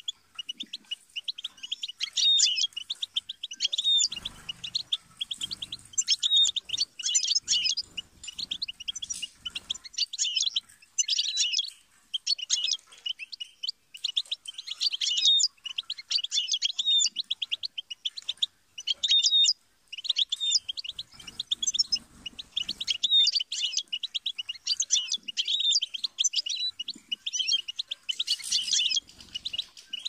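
European goldfinch singing: a fast, tinkling twitter of quick high notes in long phrases, broken by short pauses a few times.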